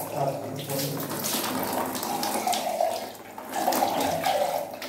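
Tap water running and splashing onto a small round metal pot (chembu) held under the stream, spilling into a bucket below.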